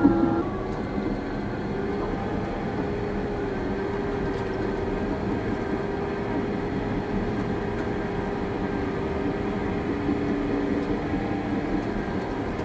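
Caterpillar D6 bulldozer's diesel engine running steadily, with a constant hum.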